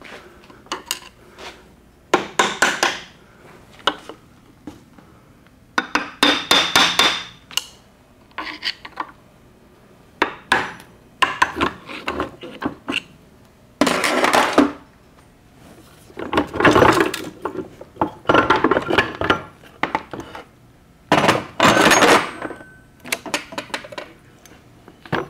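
Irregular metal clinks, clanks and short rattling scrapes of steel tools and gears against a T10 four-speed transmission case as the mainshaft gear train is pried loose and pulled out.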